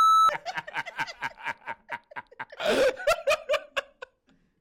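A loud, steady electronic beep that cuts off a moment in, then a man and a woman laughing hard in quick, rapid bursts, with one louder outburst near the three-second mark.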